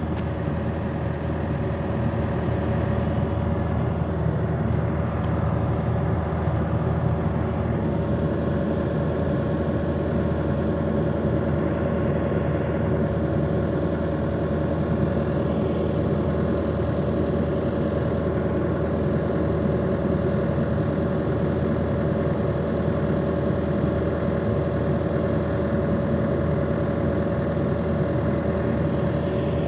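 Steady hum of an idling engine, with a constant mid-pitched whine over it.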